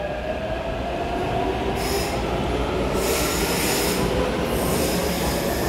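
A Taipei Metro C371 train running along the platform behind the screen doors: a steady rumble of steel wheels on rail with a faint motor whine that slides a little lower. Bursts of hiss come about two and three seconds in.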